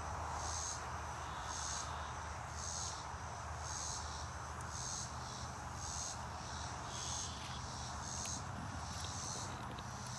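Insects calling outdoors: a high buzzing pulse repeating about once a second over a steady background hiss and low hum.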